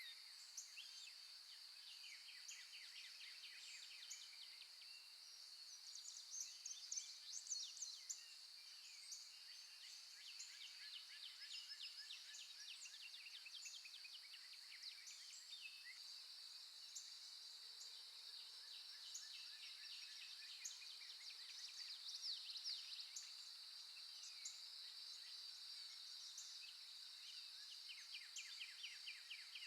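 Birdsong: several birds chirping and singing quick trills over a steady high-pitched drone.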